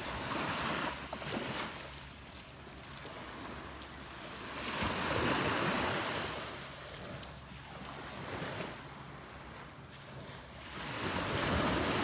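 Surf washing up on the beach, with two slow swells of rushing water, about five seconds in and again near the end.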